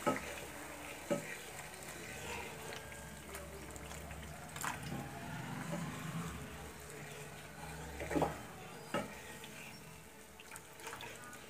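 Wooden spatula stirring a watery tomato-onion masala in a nonstick pan, with a few short knocks of the spatula against the pan. A faint low hum runs under it and stops about two-thirds of the way in.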